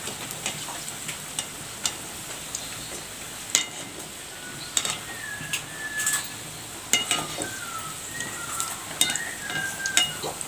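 Bondas deep-frying in hot oil in a metal kadai, a steady sizzle. From about a third of the way in, sharp clicks and short squeaky scrapes come as a wire-mesh skimmer knocks and scrapes against the pan while turning them.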